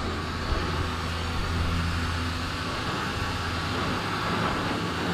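A motor running steadily with a constant low hum and an even hiss.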